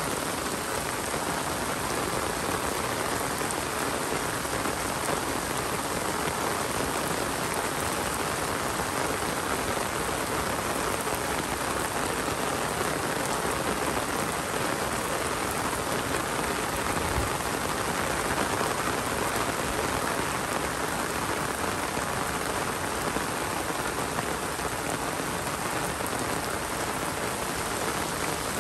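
Steady rain falling, an even hiss of drops striking surfaces, unchanging in strength.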